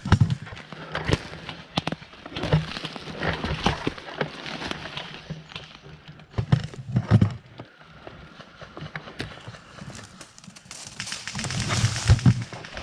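Footsteps of a player moving over woodland ground, with uneven thuds and the rustle and knock of worn kit close to the camera, heavier in a few short spells.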